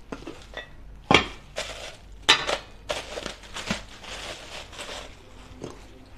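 Plastic wrapping crinkling and Sarah Tech stainless steel pots and lids clinking as they are lifted and handled, with two sharper knocks about a second and two seconds in.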